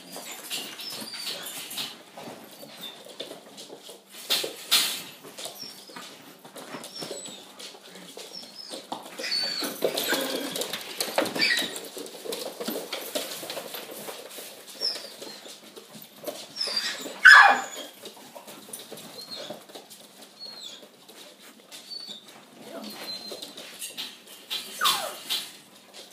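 Puppies at play, yipping and whining in short high squeaks, with a louder falling squeal about two-thirds of the way through and another near the end, over scuffling and clicking.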